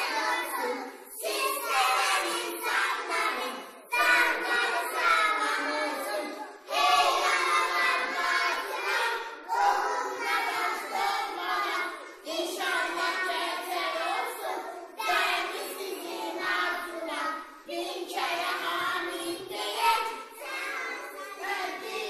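A group of young children singing together in unison, phrase after phrase, each phrase a couple of seconds long.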